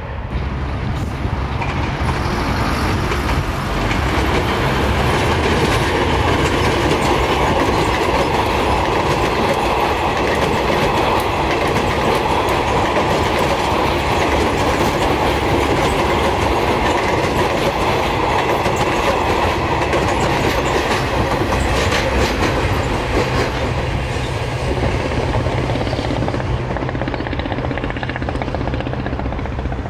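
Electric multiple-unit commuter train passing close by, its wheels clattering rapidly over rail joints. The sound builds over the first few seconds, holds steady, and eases off near the end.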